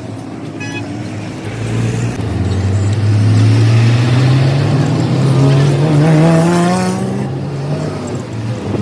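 Truck engine revving up, its pitch rising steadily over several seconds before falling away near the end.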